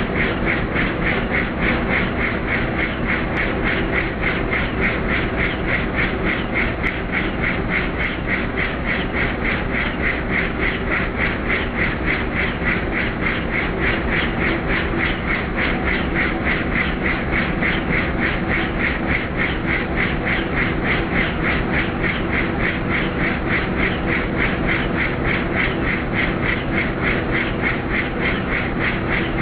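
Helicopter in flight: steady engine and rotor noise with a fast, even beat of the rotor blades.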